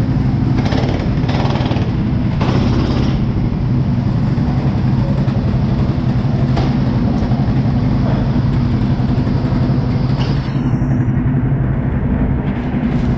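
Go-kart engine running at a steady, unchanging pitch, with a few short bursts of noise in the first three seconds.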